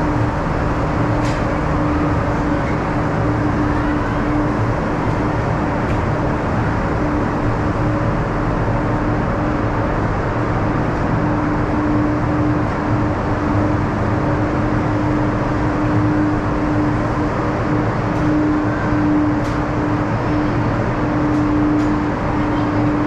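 Ice resurfacer running steadily as it circles the rink, a constant engine drone with a steady hum.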